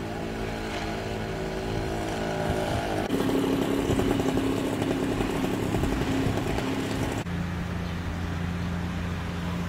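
An engine running steadily. Its tone jumps abruptly about three seconds in and again about seven seconds in.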